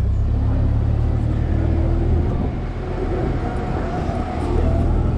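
Parking-lot tram pulling away, its engine and running gear giving a steady low rumble heard from an open passenger car.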